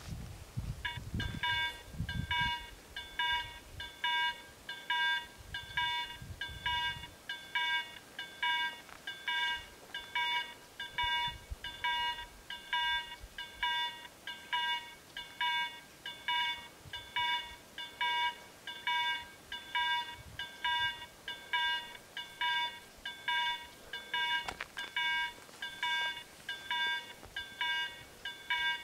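A level-crossing electronic warning bell ringing a rapid, steady series of tones, a little over two strikes a second, starting about a second in: the crossing is closing for an approaching train.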